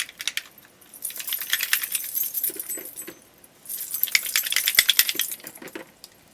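Small craft-paint bottles being shaken by hand, their contents rattling in quick runs of clicks, with a short pause about the middle.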